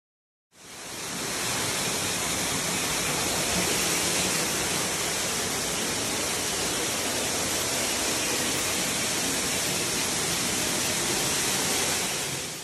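A waterfall: a curtain of water pouring down in a steady, loud rush. It starts about half a second in, swells over a second, and drops off right at the end.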